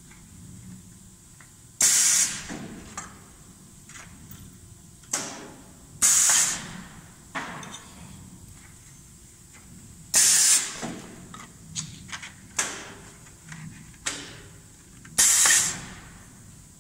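Paper hamburger box forming machine cycling its press: four sharp hisses of air, about four to five seconds apart, as each paper blank is pressed into a box. Small clicks and paper rustling between strokes as the blanks are fed in and taken out.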